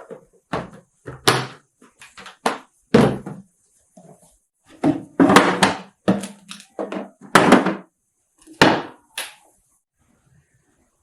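A run of household knocks and thuds, about a dozen over some nine seconds, like things being handled and set down and a door or lid closing, then it goes quiet.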